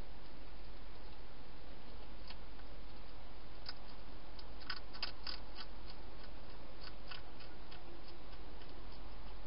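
A hedgehog crunching dry food inside a plastic feeding box: scattered sharp clicks, bunched together about halfway through and again a little later, over a steady hiss and low hum.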